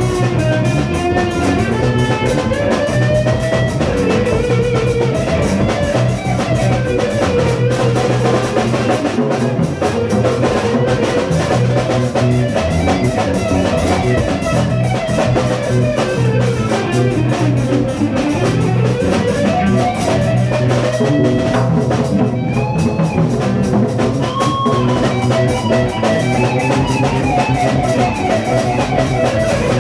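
Rock band improvising: guitar playing a bending, wandering melodic line over a drum kit and steady low notes.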